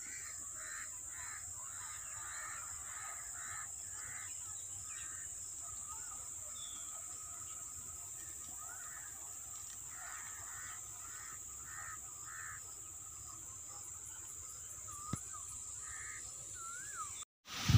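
Birds calling faintly: short calls repeated in runs of about two to three a second, one run at the start and another about ten seconds in, with a few brief chirps later, over a steady high hiss.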